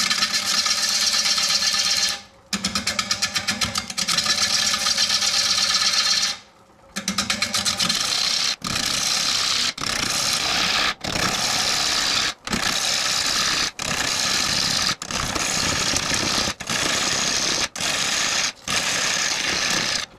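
Turning tool cutting into a large blue pine bowl blank spinning on a wood lathe, tearing off shavings. The cut has a fast, even patter and stops briefly twice in the first seven seconds, then breaks off for a moment about every second as pass after pass is made.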